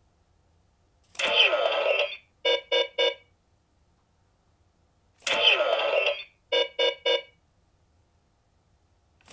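Electronic toy sound effect played twice: a sharp swooshing chime about a second long, then three quick beeps. The first starts about a second in, the second about five seconds in.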